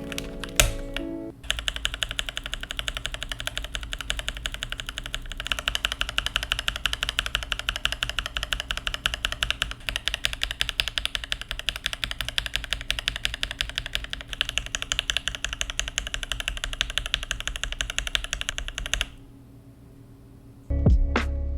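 Fast, continuous typing on a mechanical keyboard: a dense stream of clacking keystrokes that starts about a second and a half in and stops abruptly a couple of seconds before the end. Music plays briefly at the start and comes back at the very end.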